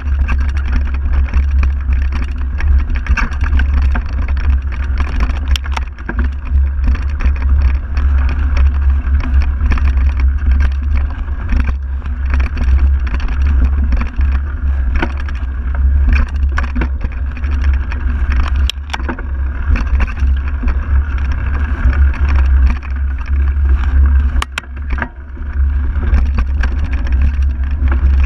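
Mountain bike rolling fast over a dirt forest trail, heard from a handlebar-mounted camera: a steady heavy wind rumble on the microphone with tyre noise over the dirt, and a few sharp knocks from bumps. The rumble dips briefly near the end.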